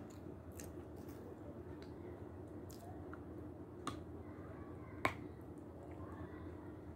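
Sharp, crisp clicks and snaps, a handful spread out with the strongest about five seconds in, as a piece of Severski edible chalk is bitten close to the microphone. A faint steady hum runs underneath.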